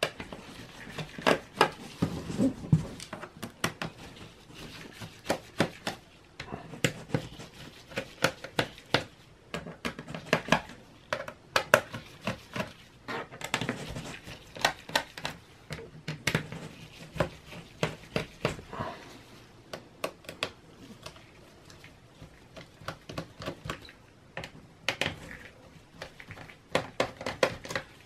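Small Phillips screwdriver turning out the bottom-cover screws of a Dell Latitude 5580 laptop: many irregular light clicks and ticks of the bit and screws against the plastic case, now in quick clusters, now spaced apart.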